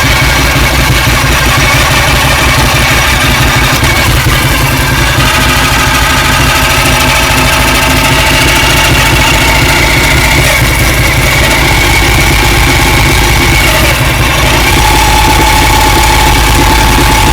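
2007 Ducati 1098's L-twin engine running in low gear with a loud, steady high-pitched whine or screech over it. The whine drops to a lower tone about fifteen seconds in. It points to a transmission fault the owner has not pinned down: the noise grows as the clutch is let out, nearly goes away with the clutch pulled in, and the gearbox won't shift while it lasts.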